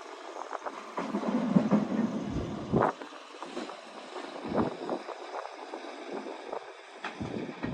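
Wind buffeting the microphone in uneven gusts, with irregular low thumps and rumble.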